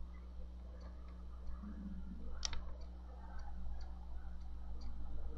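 Plastic makeup compact being handled: one sharp click about halfway through, with faint scattered ticks over a low steady hum.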